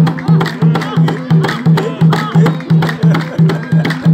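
Music with a steady low drumbeat about three beats a second, with voices singing or calling over it.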